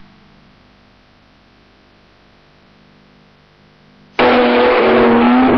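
Low tape hiss with a faint steady hum for about four seconds, a gap in the soundtrack. Then loud voices cut in abruptly.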